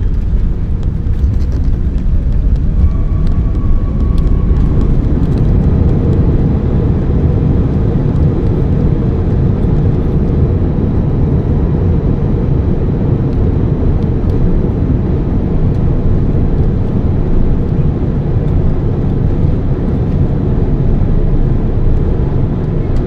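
Jet airliner's cabin noise: a steady low rumble of engines and airflow that hardly changes.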